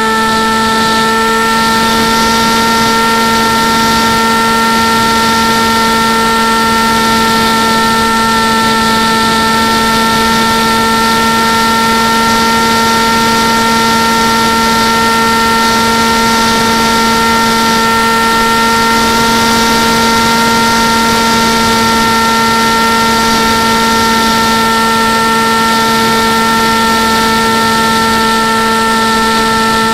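Model airplane's motor and propeller running at a constant, steady pitch in cruising flight, with wind rushing over the airframe, heard from the onboard camera.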